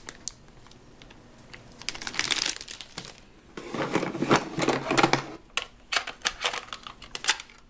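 Hard plastic toy cookie molds being pulled out of a plastic toy oven: rustling and scraping, then a quick run of light plastic clicks and knocks in the second half.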